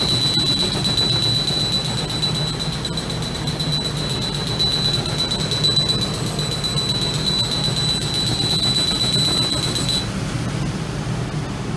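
Galvo laser cutting machine running: a steady high-pitched whine over a continuous hum and hiss of fans and air, the whine cutting off suddenly near the end.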